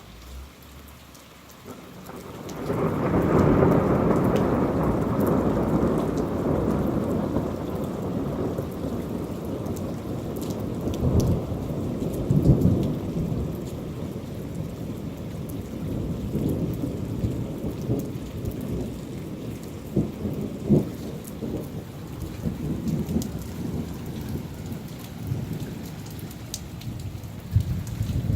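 Thunder from a thunderstorm: a long rumble that swells about two seconds in, loudest over the next few seconds, then rolls on with a few sharper cracks, over steady falling rain.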